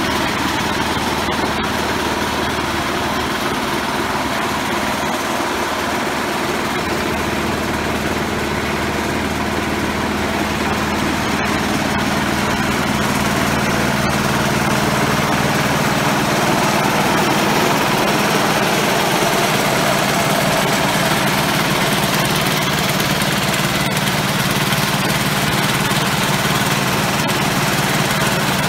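Small engines on grain augers running steadily as they load sunflower seed, a constant engine hum under a steady hiss.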